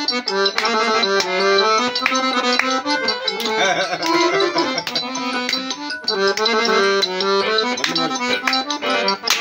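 Piano accordion playing a lively Macedonian folk melody as an instrumental break between sung verses, with hand claps keeping time.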